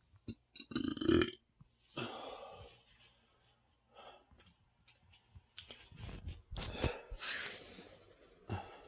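Deep burps from a stuffed, overfull stomach. A loud pitched one comes about a second in, followed by softer breathy sounds and a louder hissing burst near the end.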